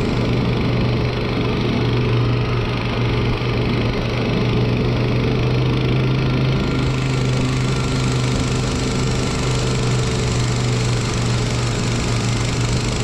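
Engine of a motorized ice tow (motor dog) running at a steady speed while it pulls a loaded sled over snow, its pitch holding even throughout.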